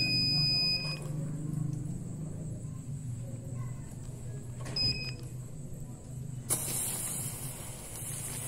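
Small firework fountains ignite about six and a half seconds in, with a sudden spraying hiss that continues. Before that there is an electronic two-tone beep at the start and again briefly around five seconds, over a steady low hum.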